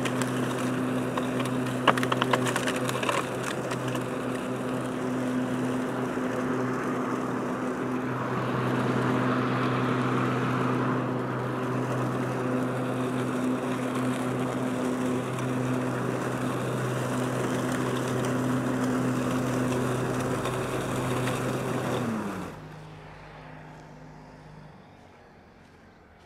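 Powersmart 80-volt cordless twin-blade mower running with a steady electric hum while mulching grass and leaves, with a few sharp ticks about two seconds in. Near the end it shuts off: the hum falls in pitch as the blades spin down and fades out.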